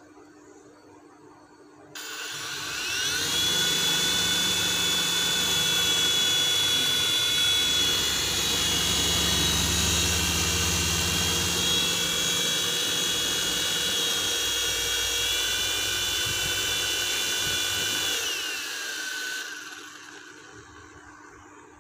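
Toy infrared remote-control helicopter's small electric rotor motors spinning up about two seconds in with a rising whine. They run at a steady high-pitched whine with rotor whir, then wind down with a falling whine and stop near the end.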